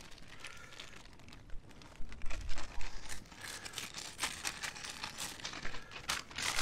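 Plastic zip-top bags crinkling and rustling in the hands as chopped toppings are shaken out of them, in irregular crackles that are busiest about two to three seconds in.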